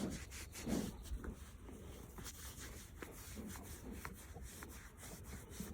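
A calf pushing and rubbing against something, making scuffing and rubbing sounds, with a couple of short low thuds in the first second or so and lighter scuffs after.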